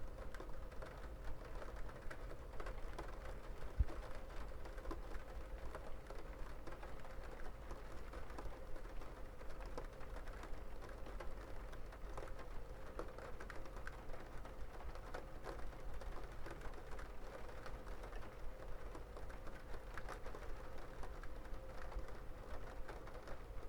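Rain falling, heard as a dense, irregular pattering of drops ticking on a hard surface, with a faint steady hum underneath and one sharper tick about four seconds in.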